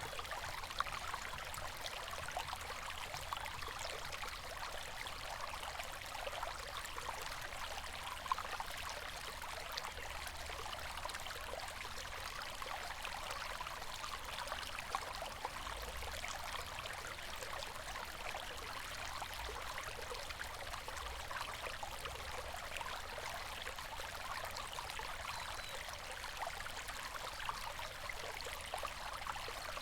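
River water flowing, a steady rush of running water with fine trickling and splashing throughout.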